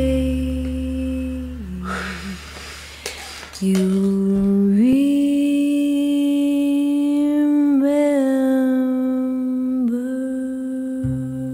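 Music: the close of a slow ballad, a voice humming long held notes over low sustained tones, with a short pause about two seconds in and the pitch stepping up about five seconds in.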